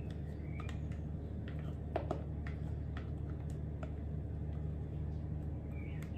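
Thick cake batter being poured from a bowl into a metal springform tin while a silicone spatula scrapes the bowl and tin, giving scattered light clicks and taps, the sharpest about two seconds in, over a steady low hum.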